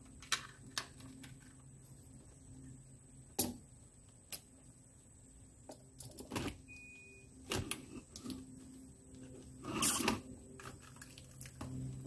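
Plastic and metal clicks, knocks and a scraping rustle as an aftermarket Becker car radio and its trim are worked loose and pulled out of the dashboard. A sharp knock comes about three and a half seconds in, and a longer scrape near the end.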